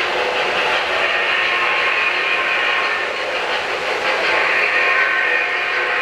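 O-scale three-rail model freight train running past on its track: a smoking steam locomotive followed by boxcars, with a steady running noise of metal wheels on the rails.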